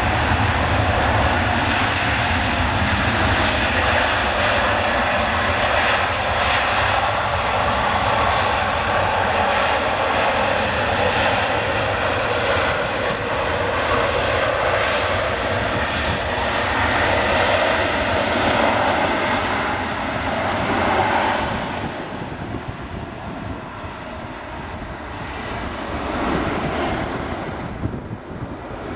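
Boeing 777-300ER's GE90 jet engines roaring as the airliner slows on its landing roll-out. The roar drops away about three-quarters of the way through.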